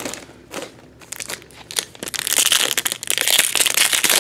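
A few light clicks and taps, then from about two seconds in, the wrapper of a baseball card pack crinkling steadily as it is handled and opened.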